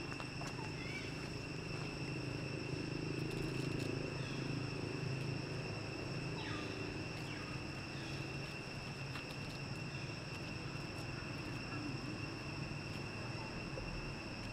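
Steady insect chorus: an unbroken high buzzing drone at an even pitch, over a low background hum, with a few faint rustles.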